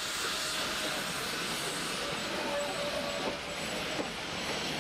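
Carriages of a metre-gauge steam train rolling past close by: a steady rushing noise of wheels running on rail.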